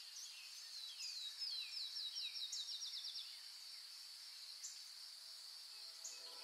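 Open-field ambience: a steady high insect drone, and a songbird singing a run of down-slurred whistles that quicken into a fast trill about a second in. Soft music begins to fade in near the end.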